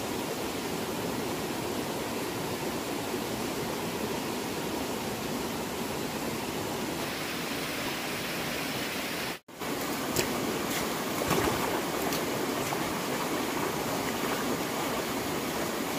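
Shallow mountain stream running over rocks, a steady rush of water. After a brief drop-out about halfway, a few sharp splashes from boots wading through the water.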